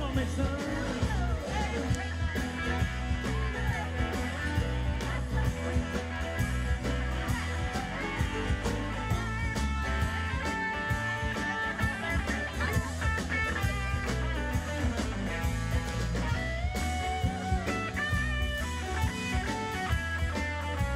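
Live rock band playing an instrumental passage: electric and acoustic guitars over a drum kit and keyboard, with a steady beat and a guitar carrying the melody.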